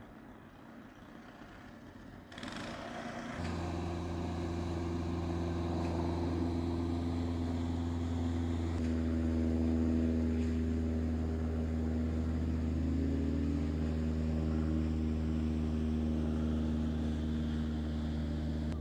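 An engine hum that comes in about three seconds in, after a noisy rise, and then runs steadily at an even pitch.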